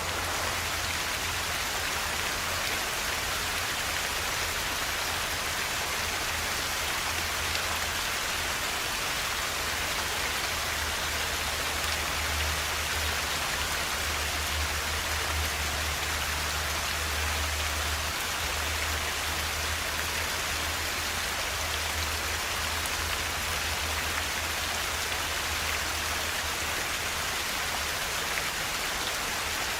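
Forest river flowing: a steady, even rush of water with no pauses.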